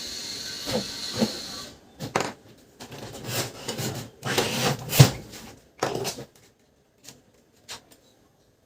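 Hands working on a laser printer's plastic parts: irregular knocks, clicks and rubbing as components are handled and fitted, thinning to a couple of faint clicks near the end. A steady hiss with a faint high whine runs under the first second and a half, then stops.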